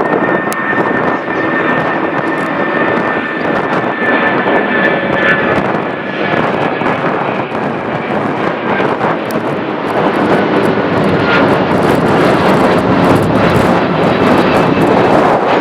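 Boeing 757 jet engines at takeoff power: a loud, dense rushing noise with a thin, steady high whine over the first few seconds. It grows louder toward the end.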